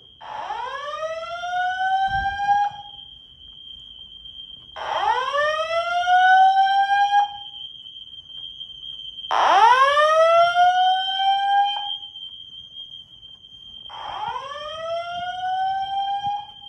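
Fire alarm speakers sounding a slow whoop evacuation tone: four rising whoops, each about two and a half seconds long with a short gap between, over a steady high-pitched tone.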